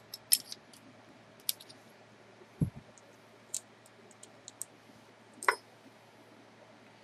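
Scattered small metallic clicks and ticks as a bolt, nut and ball bearing of a homemade linear slide bearing assembly are handled and taken apart by hand, with one duller knock about two and a half seconds in.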